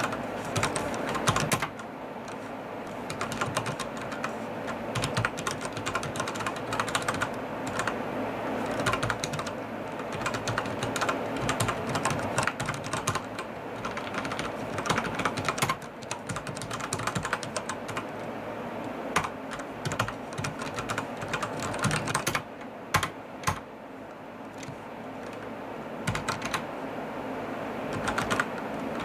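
Logicool G710+ mechanical keyboard with Cherry MX Brown switches being typed on in fast, steady streams of key clicks, with a fairly strong low thock to the keystrokes.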